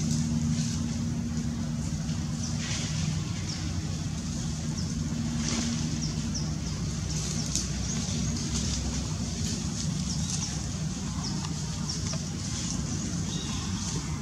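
A steady low drone of a distant motor, with faint brief high crackles now and then.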